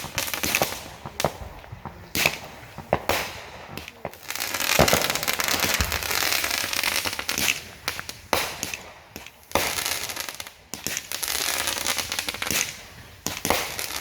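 Consumer fireworks going off: a rapid series of sharp bangs from launches and bursts, with long stretches of crackling and hissing.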